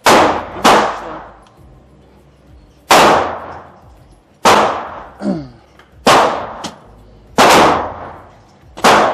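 Pistol shots fired at a shooting range, about seven loud cracks at irregular intervals, each echoing away.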